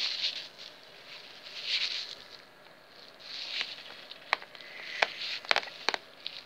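A tabby kitten pawing at the camera up close, making short scratchy rustles every second or two. A few sharp taps, likely its claws, come in the second half.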